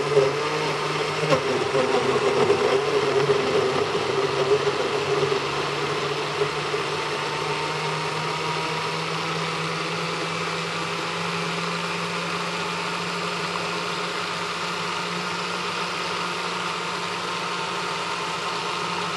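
Blender motor running, churning frozen banana and strawberries with spinach, orange juice and yogurt into a smoothie. It is louder and rougher for the first five seconds or so, then settles into a steady hum.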